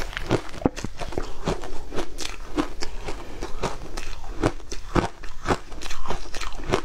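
Shaved ice being bitten and chewed close to the microphone: a quick, irregular run of crisp crunches, several a second.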